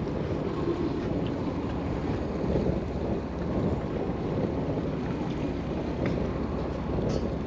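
Steady wind and water noise on a sportfishing boat at sea, with a couple of faint clicks near the end.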